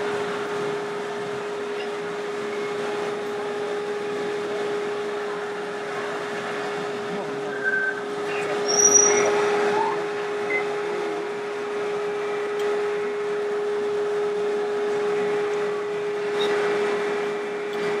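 Busy trade-fair hall ambience: indistinct crowd chatter over a steady hum, with a few brief high chirps about halfway through.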